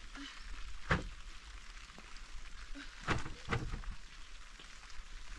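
Beehive boxes and their plastic cover being handled: one sharp knock about a second in, then two short thuds with a rustle just after three seconds, over a faint steady hiss.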